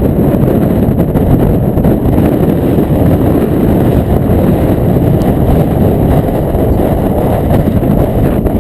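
Hurricane-force storm wind buffeting the microphone: a loud, steady, low rumbling roar with no breaks.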